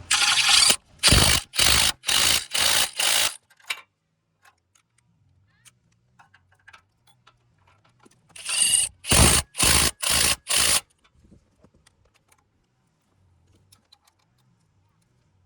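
Socket ratchet tightening the A/C compressor's mounting bolts: two runs of quick ratcheting strokes, about six at the start and five more about eight seconds in.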